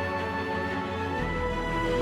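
Cinematic background music of sustained chords, with a deep bass note and a new higher tone coming in a little past halfway.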